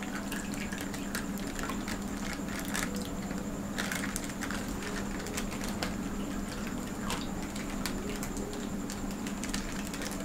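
Soup poured from a foil-lined takeaway packet into glass bowls: liquid trickling and splashing, with the foil packet crinkling in the hands in short crackles, over a steady low hum.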